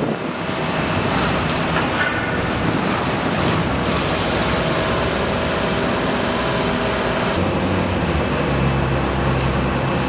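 Steady rushing background noise. A low, steady engine hum joins about seven and a half seconds in.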